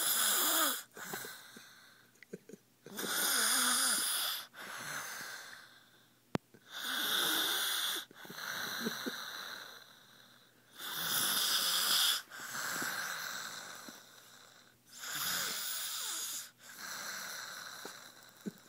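A young boy snoring in his sleep: a loud, hissing breath about every four seconds, with softer breaths between. A single short click about six seconds in.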